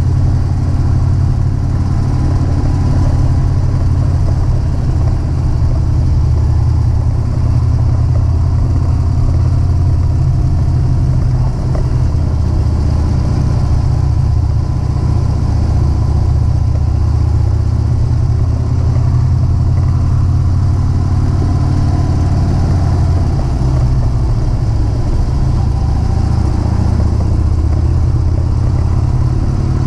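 Harley-Davidson Road King's air-cooled V-twin engine running steadily at cruising speed, heard from the moving motorcycle with wind noise over it.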